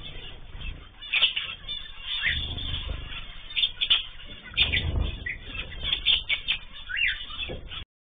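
Small aviary birds, zebra finches among them, giving many short chirps and squawks, with wing flutters as they land on and leave a feeding hand. Low thumps come and go under the calls, and the sound cuts off abruptly near the end.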